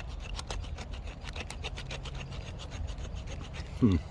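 Knife blade of a Zippo 7-in-1 fire-starting multi-tool scraping down a stick of wood in repeated short strokes, a few a second, carving feather-stick curls.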